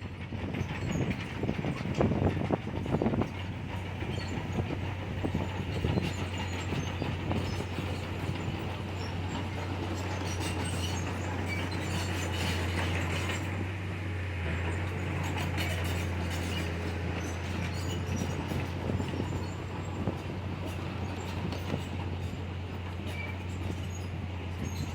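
Komatsu bulldozer working: its diesel engine runs at a steady hum under the clanking clatter of its steel tracks. A few louder knocks come in the first three seconds.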